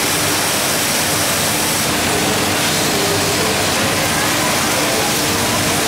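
Steady, loud workshop din, an even rushing noise with a faint constant hum, as from the machinery and fans of a garment sewing room; no distinct events stand out.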